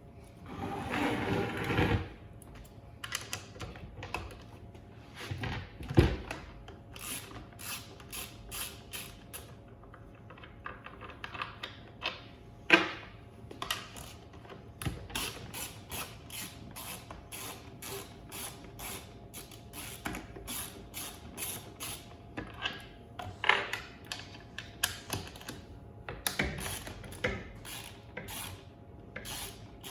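Ratchet spanner clicking in quick runs as the 10 mm bolts holding a Davey water pump together are undone, with a few louder metallic knocks in between.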